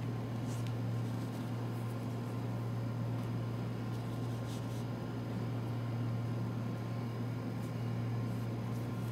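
A steady low hum, like a fan or motor running, with a few faint short rustles as electrode straps are fastened on the abdomen.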